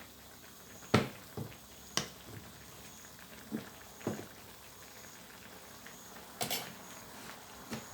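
Sharp knocks of a cooking utensil against the pot, about eight at uneven intervals with the loudest about a second in, while seasoning is stirred into boiling curry. A faint steady background lies underneath.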